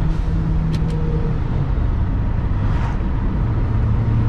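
Audi A4 B7 2.0T's turbocharged four-cylinder engine and tyre noise heard from inside the cabin while driving. The steady engine hum drops to a lower pitch partway through.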